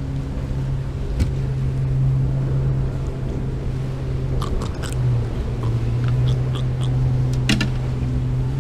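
Steady low hum of a boat engine running, with a few sharp clicks and taps as a hooked fish is handled. The clicks come around the middle and near the end.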